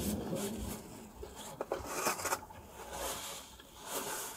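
Paper napkin rustling and rubbing in several short scratchy bursts as hands are wiped after eating, with a little chewing near the start.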